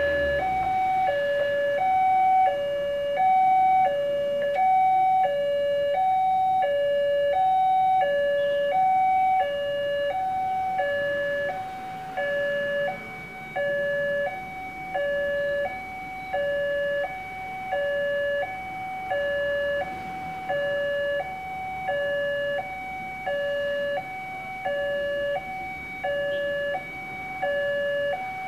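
Railway level-crossing warning alarm sounding: an electronic two-tone signal alternating steadily between a lower and a higher tone, about one high-low cycle a second, going a little quieter about halfway through. It sounds while the crossing's red lights flash to warn of an approaching train.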